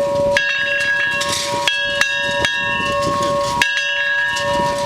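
A large tower bell tolled by rope pull, its clapper striking more than once per pull: strong strikes about every second and a half with lighter extra strikes between them, the bell's tone ringing on throughout.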